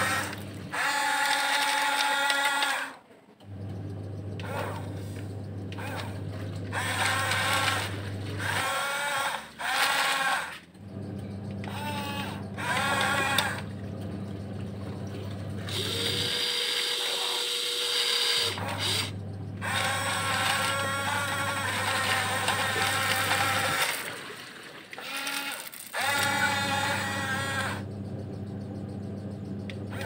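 Small electric motors and gearboxes of a Huina 1569 radio-controlled toy bulldozer whining as it drives back and forth, in runs of several seconds with short pauses between.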